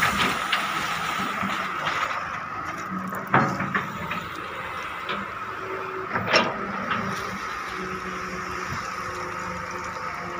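Wheeled excavator's diesel engine and hydraulics running steadily under load as it swings and digs gravel. At the start, gravel spills from the bucket into the steel dump-truck bed. Two sharp knocks come about three and six seconds in.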